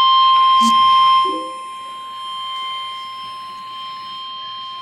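Emergency Alert System warning alarm tone: a steady, single-pitched electronic tone held throughout, announcing a flash flood warning. It is loud at first and drops noticeably in level a little over a second in.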